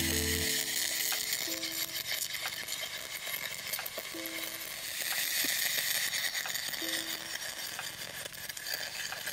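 MIG (gas metal arc) welding arc on quarter-inch steel under straight CO2 shielding gas: a steady crackling sizzle broken by frequent sharp pops as spatter flies. The arc runs erratically, as is typical of straight CO2.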